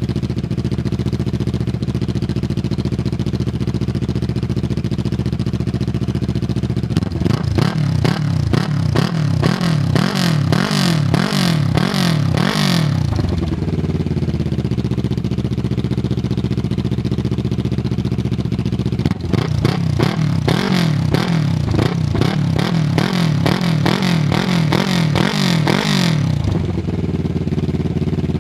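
Kawasaki Ninja 650R parallel-twin race engine, built with pistons, cams, a lightened crank and ported head, idling steadily and then blipped in two runs of quick repeated revs, each about six seconds long, dropping back to idle after each.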